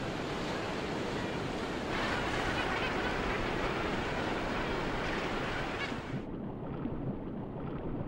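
Ocean surf washing and breaking: a steady rush of water that grows a little louder about two seconds in. Near the end the highs drop away and it turns to a dull, muffled underwater rush.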